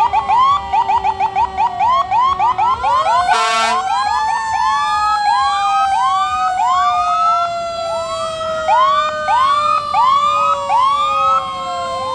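Fire truck sirens sounding together, several sirens repeatedly swooping up and down while another tone slowly falls in pitch. A single short air horn blast comes about three and a half seconds in.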